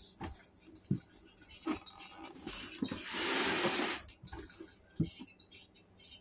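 A cardboard toy box with a clear plastic window being handled: light taps and knocks, with one loud scraping rustle lasting about a second around three seconds in.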